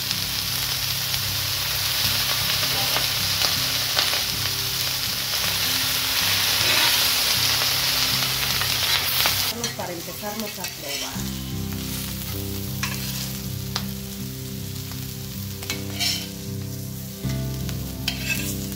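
Wild mushrooms with onion and chile frying in oil, sizzling loudly. About nine and a half seconds in the sizzle drops off sharply to a much quieter one, and low background music runs underneath.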